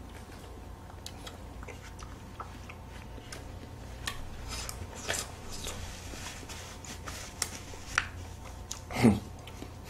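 Quiet eating sounds: sucking and slurping on melon ice cream, with melted ice cream scooped from a glass bowl with a wooden stick. A few light clicks come through, and a short voiced grunt or hum about nine seconds in.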